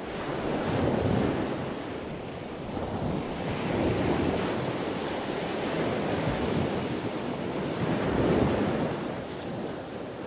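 Ocean surf: a steady wash of waves that rises and falls in three slow swells.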